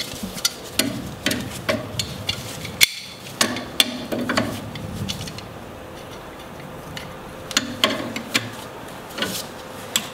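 Irregular metal clicks and clinks of a wrench working against a steering joint as a heat-softened, Loctite-bound steering stud is broken loose. The clicks come thickest in the first few seconds and thin out after.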